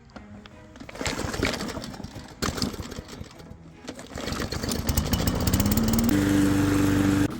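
Petrol lawn mower engine revving up, rising in pitch to a steady high running speed, then cutting off abruptly.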